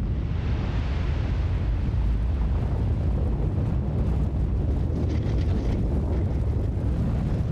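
Volcanic eruption: a deep, steady rumble with a hiss above it.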